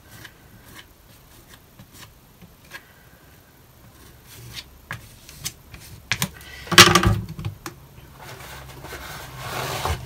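A painting tool dabbing and scraping thick cold wax paint onto a panel: faint scattered taps and rubs, a louder short clatter about seven seconds in, and a longer scrape near the end.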